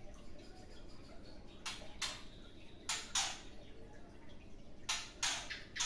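Caged white-rumped shama making three pairs of short, harsh, noisy sounds, each pair quick in succession.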